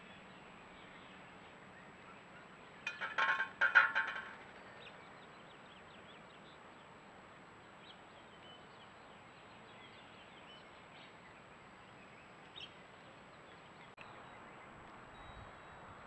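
Blue jay giving two loud, ringing calls in quick succession about three seconds in, each about half a second long. Faint high chirps follow later.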